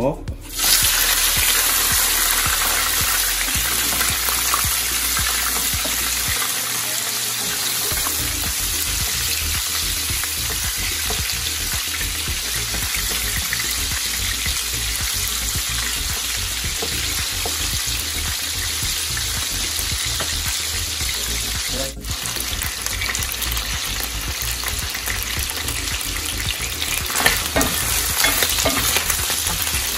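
Raw chicken pieces sizzling loudly as they fry in hot oil in a pot. The sizzle starts suddenly when the chicken goes in, and the pieces are turned with a ladle, which knocks against the pot a few times near the end.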